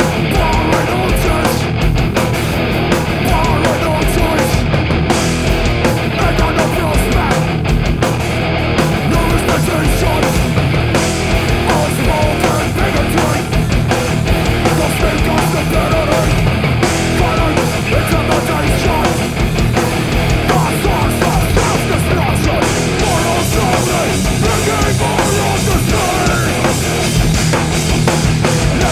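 A rock band playing loudly and steadily, with electric guitar, bass guitar and drums.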